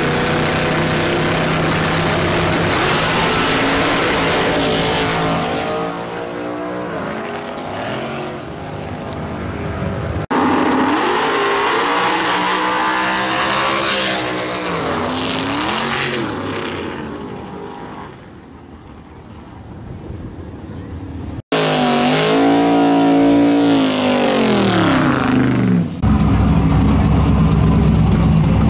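Drag-race Mustangs at full throttle, one run after another: each engine climbs in pitch, drops at the gear changes and fades as the car pulls away down the strip. Near the end a turbocharged pickup's engine runs steady and low at the line.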